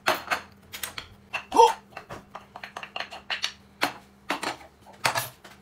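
Dishes and utensils clinking and knocking: about a dozen irregular sharp clicks in quick succession, with one brief louder pitched sound about a second and a half in.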